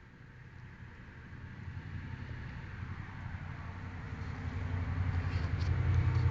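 A vehicle's low rumble, growing steadily louder.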